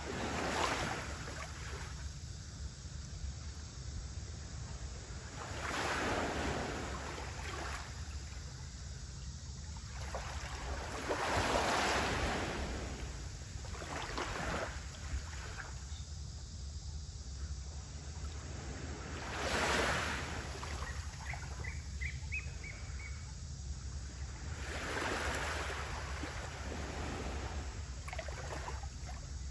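Gentle sea waves lapping, a soft wash of surf swelling about every six seconds over a steady low rumble.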